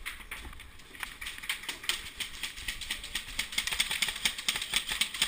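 Airsoft guns firing, with rapid, irregular sharp clicks and taps of shots and BB impacts that thicken from about a second in.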